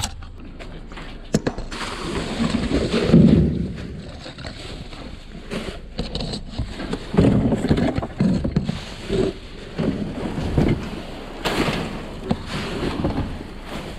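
Clear plastic trash bags rustling and being shifted around inside a metal dumpster, with scattered bumps and knocks.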